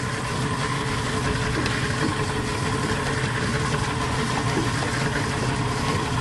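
Boat engine running steadily at idle, a constant hum.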